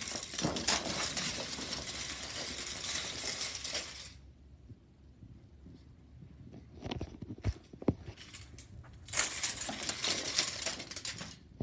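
Popsicle-stick chain reaction: a woven chain of wooden craft sticks springing apart, the sticks flipping and clattering onto carpet in a rapid crackle. The clatter runs for about four seconds, stops apart from a few scattered clicks, then comes again in a second dense run for about two seconds near the end.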